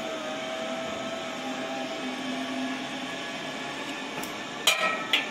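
Steady whirring hum of a zip-line trolley's pulleys running along the steel cable. Near the end there are two sharp clicks about half a second apart.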